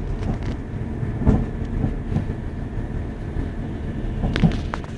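Diesel passenger train running at speed, heard from inside the carriage: a steady low rumble with a single knock about a second in and a few sharp clicks near the end.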